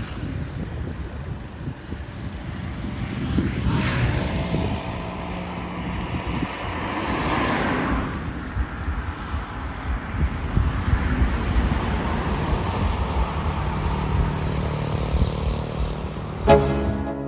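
Wind buffeting the microphone over steady outdoor rumble, while a motor vehicle engine passes, rising and fading. Music starts just before the end.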